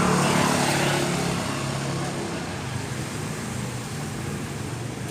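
Suzuki Forsa's 1.0-litre three-cylinder engine running steadily, a low even hum, with a brief swell of noise in the first second that fades.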